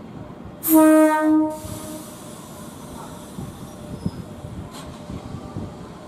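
Nagano Electric Railway 3500-series electric train sounding its horn once, about a second in, a short blast with a brief break in the middle, followed by a hiss. A low rumble then builds as the train starts to move off.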